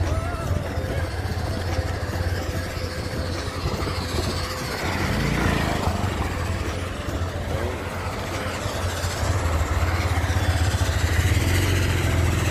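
Motorcycle engine running as the bike rides along a rough gravel track, a steady low drone that grows a little louder near the end.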